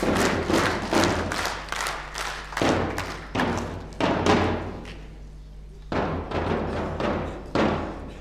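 Drums struck in a steady run of ringing strokes, which stop for about a second past the middle and then resume.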